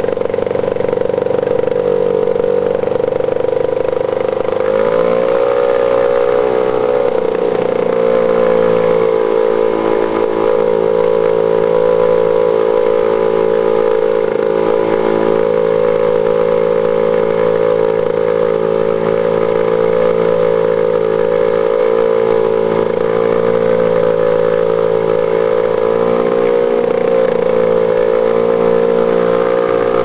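British Seagull single-cylinder two-stroke outboard motor running steadily, pushing a canoe upstream against a strong current. Its note climbs about five seconds in and wavers again near the end.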